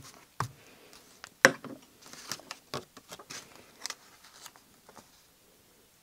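Paper handling: a cut-out image rustling and being rubbed and pressed flat onto a glued journal page, with scattered light taps and one sharp click about a second and a half in.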